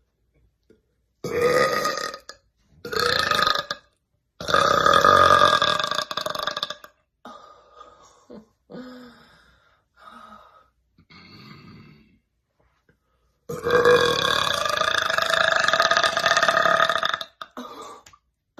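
A girl burping loudly and at length: two short burps about a second apart, then a long drawn-out burp of two and a half seconds. A few softer, shorter sounds follow, and near the end comes a last long burp of nearly four seconds.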